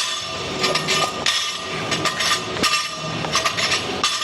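Metal gym equipment clanking: a string of irregular sharp knocks over a steady background of gym noise.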